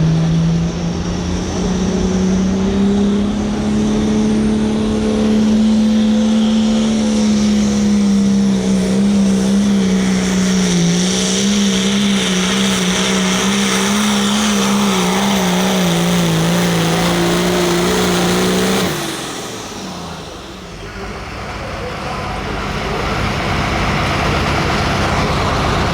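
Hot farm pulling tractor's turbocharged diesel engine running flat out under the load of the sled. Its pitch climbs and holds, then wobbles up and down as the run goes on. About three-quarters of the way through it cuts off suddenly as the run ends, and broad noise builds back up afterwards.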